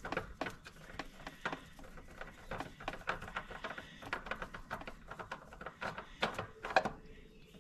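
Spin-on oil filter being worked loose by hand from a Ford 4.2 V6, giving light, irregular clicks and taps a few times a second, a little louder near the end.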